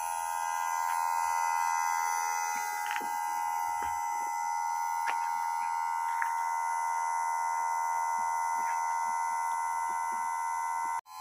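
Trend TL-531 electric chain saw sharpener's motor running with the grinding wheel spinning free, a steady high-pitched whine with a few faint ticks. The sound drops out for an instant near the end.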